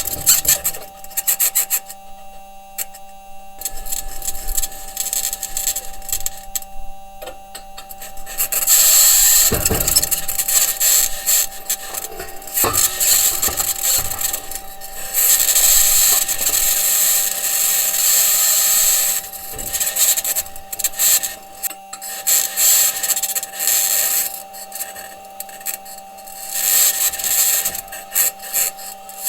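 Perseverance Mars rover driving, picked up by its entry, descent and landing microphone: the wheels and suspension grind and knock over the rocky surface, with loud high-pitched scratching in long stretches over a steady faint hum. The scratching's source is uncertain: electromagnetic interference from a rover electronics box, or the mobility system rubbing on the ground.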